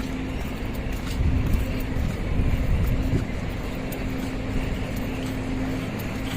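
A motor vehicle's engine running, a steady low hum over a rumble.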